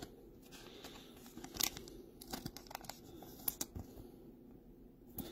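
Glossy Topps Chrome baseball cards being handled and slid off one another, with light rustling and a few sharp little clicks.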